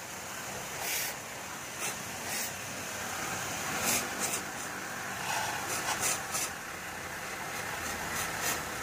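Water spray hissing against a car's front bumper and AC condenser while it is rinsed clean, with water splashing and dripping onto the wet ground. Brief louder bursts of hiss come and go.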